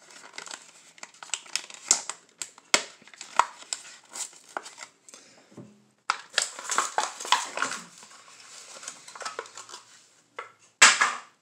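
Hot Wheels plastic blister pack and card being torn open by hand: irregular crinkling and crackling of the plastic in two spells, with a brief lull between them and one sharp snap near the end.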